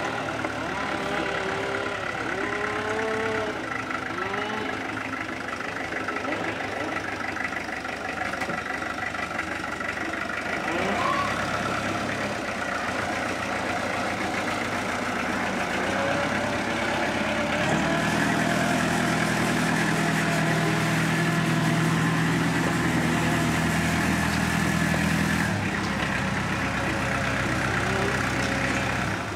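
Small utility truck's engine idling with a steady low hum, loudest for several seconds in the latter part, then dropping away shortly before the end.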